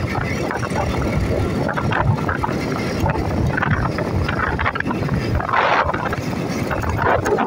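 Motorcycle being ridden along a rough road: engine running steadily under heavy wind rush on the microphone, with a brief louder hiss about five and a half seconds in.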